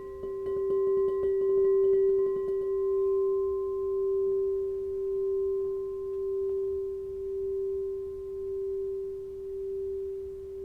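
Crystal singing bowl sounding one sustained, pure tone with a fainter higher overtone. It swells over the first two seconds, then rings on with a slow, regular wobble in loudness.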